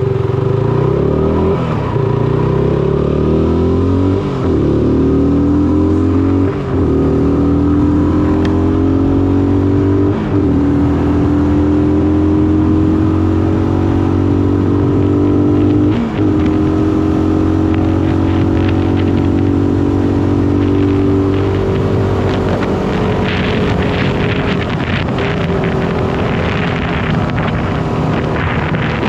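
Shineray SBM 250S motorcycle engine accelerating through the gears. Its pitch climbs, drops sharply at each upshift, and climbs again several times. Over the last several seconds the engine eases off and rushing wind noise takes over.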